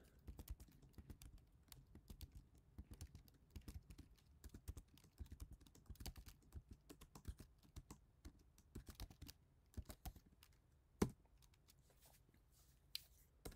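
Faint typing on a computer keyboard: a quick run of key taps while a line of code is entered. One louder keystroke comes about eleven seconds in, followed by a few scattered taps.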